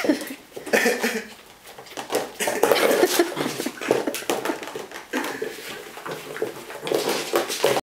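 Clear plastic box clattering and scraping as a Norfolk Terrier paws and pushes it around on a rug and wooden floor. Irregular knocks and rattles, busiest about three seconds in.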